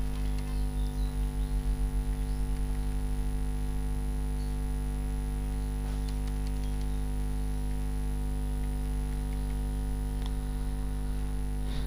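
Steady electrical mains hum with a slight throb in its lowest tone during the first few seconds, and a few faint keyboard clicks as figures are typed.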